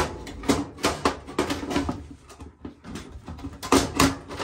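Sheet-metal front door panel of a Trane XV95 furnace being fitted back onto the cabinet: a string of metal clanks, knocks and scrapes. There is a sharp clank at the start and another cluster of knocks near the end, over a faint steady hum.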